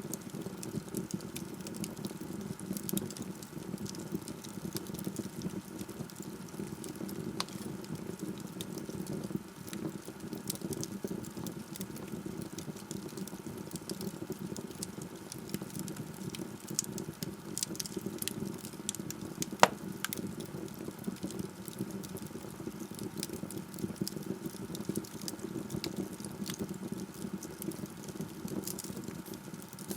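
Log fire burning in a fireplace: a steady low hiss of flames with scattered small crackles and one sharper pop about twenty seconds in.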